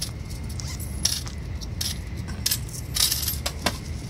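Steady low rumble of a Shinkansen cabin with the train running, with scattered sharp light clicks on top, the densest cluster about three seconds in.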